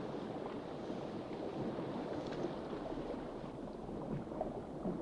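Soft, steady wash of sea water, a low rushing noise with a few faint ticks, as in underwater reef ambience.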